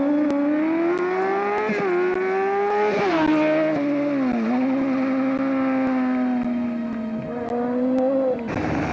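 Competition car engine running hard at high revs, its pitch climbing steadily and then dropping sharply several times as it shifts gear or lifts. Near the end it cuts off abruptly to a different, rougher noise.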